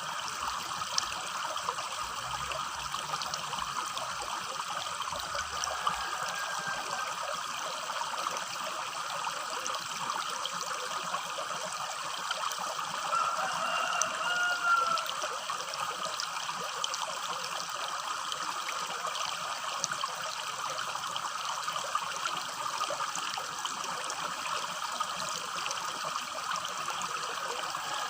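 Small shallow river babbling steadily over stones, a continuous rushing trickle with a slight swell about halfway through.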